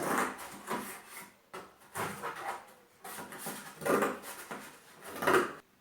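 Scissors cutting through cardboard: a series of uneven, rasping cutting strokes.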